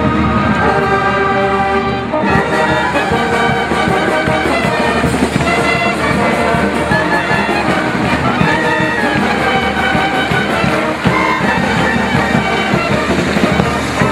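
Music led by brass instruments, trumpets and trombones, playing held notes.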